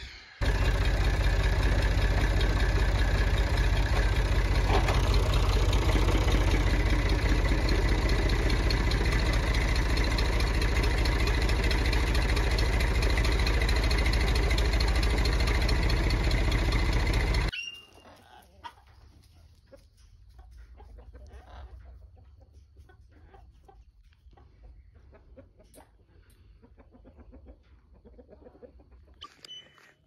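Massey Ferguson tractor engine running steadily under load while it drags an aviary on a chain. It stops abruptly about 17 seconds in, leaving only faint scattered ticks and knocks.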